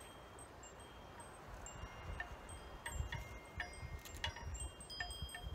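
Metal wind chimes ringing at scattered moments, each strike leaving a thin high tone that dies away, more often from about halfway through, over a low rumble.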